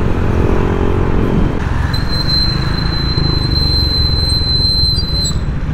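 Honda Click 150i scooter's single-cylinder engine and wind rumble while riding, the engine note falling over the first second and a half as the throttle eases. About two seconds in, a steady high-pitched squeal starts and holds for about three seconds.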